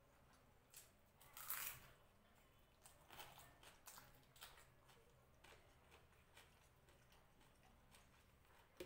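Faint eating sounds: fingers mixing rice and fish on a plate and soft chewing, heard as a scattering of short noises, the loudest about a second and a half in.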